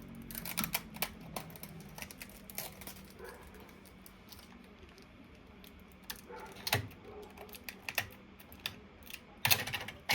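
Light clicks and rattles of small hard parts and packaging being handled, with the loudest burst of clatter near the end.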